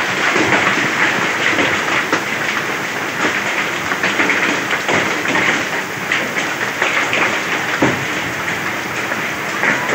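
Heavy rain with hail falling: a dense steady hiss with many sharp clattering impacts throughout.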